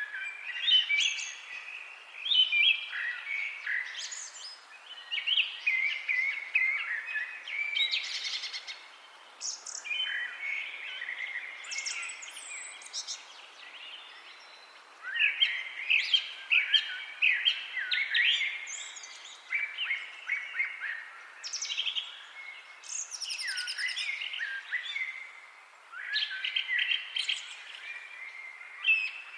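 Songbirds singing in a busy chorus of overlapping chirps and warbled phrases, with brief lulls, over a faint steady hiss.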